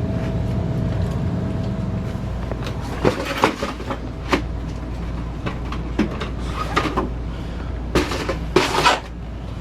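Scattered knocks, clacks and a crinkling rattle as things are picked up and handled, over a steady low hum.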